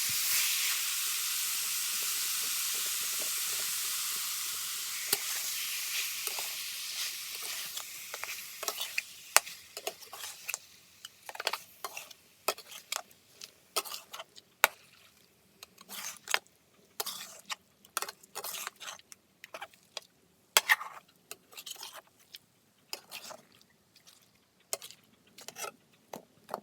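Curry frying in a pan: a steady sizzle fades away over the first several seconds. After that a spoon stirs it, scraping and clicking against the pan at irregular moments.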